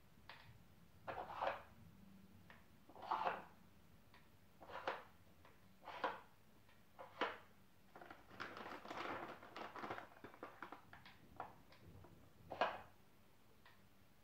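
Wooden Dog Twister treat puzzle being handled: short wooden clacks and scrapes every second or so as its parts are turned and treats put in, with a longer run of small clicks and rustling about eight seconds in.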